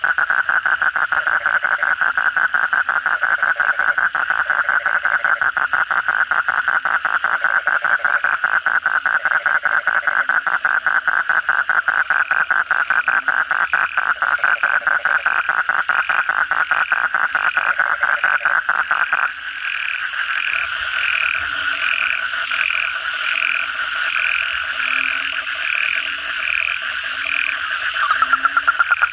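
Asian common toad calling with its vocal sac inflated: a long, fast, unbroken trill that breaks off about two-thirds of the way through and starts again near the end. Other frogs of the chorus call alongside it with a higher note repeated about twice a second and scattered low croaks, heard plainly while the trill is silent.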